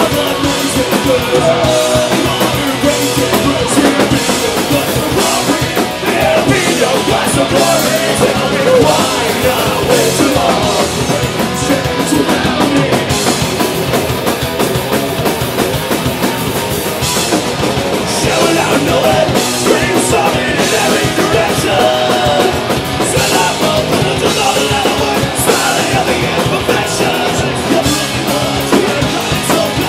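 Punk rock band playing live: electric guitars, bass guitar and drum kit with a lead singer's vocals, loud and continuous.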